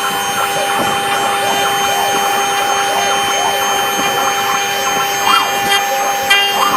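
CNC engraving machine's spindle running steadily with a constant whine while the bit cuts into wood.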